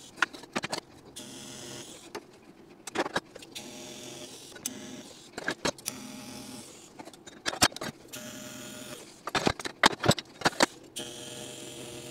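TIG welding arc on stainless steel exhaust tubing: a steady electrical buzz in several short stretches as the welds are laid, broken by sharp clicks.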